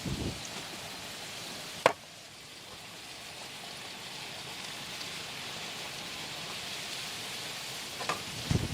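Steady rain falling, an even hiss. There is one sharp tap about two seconds in and a few short low thuds near the start and near the end.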